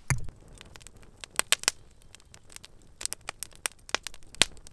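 Logs burning in a fire pit, crackling with irregular sharp pops, a few of them loud. It opens with a low thump of the camera being handled.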